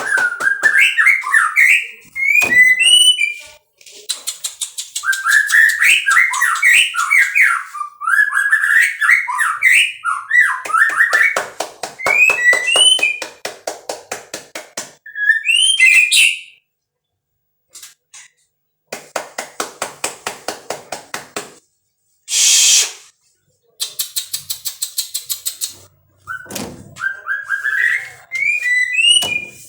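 White-rumped shama singing loud whistled phrases with quick rising glides, broken up by fast rattling trains of clicks and a short harsh hiss, with a few brief pauses.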